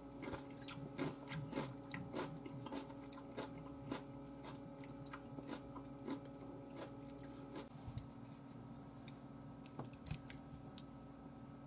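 Close-up crunchy chewing of kimchi, about three crisp crunches a second, stopping after about seven and a half seconds. Near the end a couple of sharp clicks of chopsticks against a ceramic bowl.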